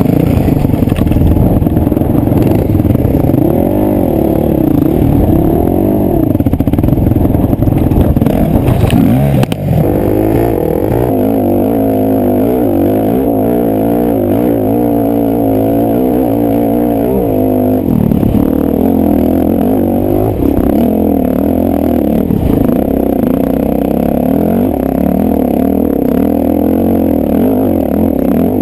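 KTM 250 SX two-stroke single-cylinder motocross engine running hard under load, its pitch rising and falling as the throttle opens and closes, with a brief drop about ten seconds in.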